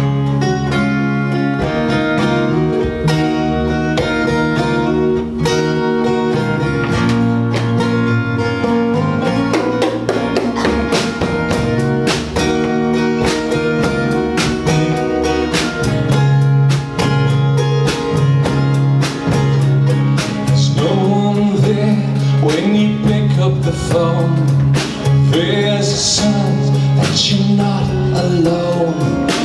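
A live band playing a song: strummed acoustic guitars over electric bass and drums, with singing that becomes more prominent in the last third.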